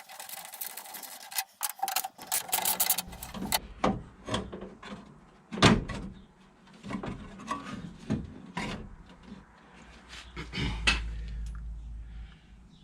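Metal parts and hand tools clinking and knocking while a water pump is fitted and bolted onto a Mazda 13B rotary engine, with runs of rapid clicks in the first few seconds and one sharp knock about six seconds in.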